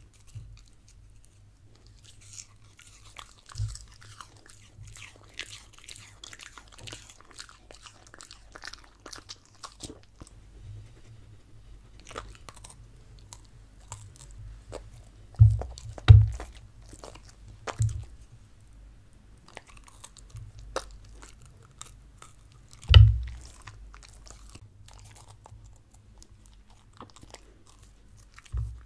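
A Samoyed crunching and chewing a raw pear slice, then biting and chewing pieces of sweet bell pepper, with many sharp crunches. A few heavy low thumps stand out about halfway through and again later.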